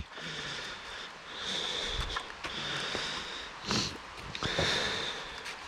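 A hiker breathing heavily and audibly close to the microphone, about four long breaths in a row, with a brief knock a little under four seconds in.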